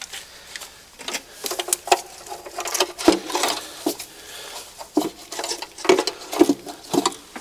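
A GM replacement plastic upper intake plenum, with its throttle body attached, being set in place and seated on a 3.8L V6 engine by hand: irregular clicks, taps and knocks of plastic and metal parts, several sharper knocks in the second half.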